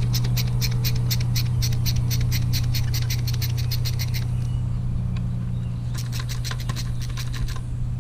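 A steady low drone, fitting a lawn mower engine running next door, under two runs of rapid sharp clicks at about five a second: the first lasts about four seconds, the second is brief and comes near the end.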